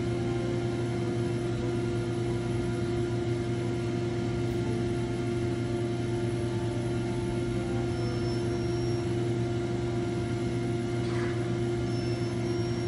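Steady mechanical hum of commercial kitchen equipment: a constant low drone at a fixed pitch that does not change.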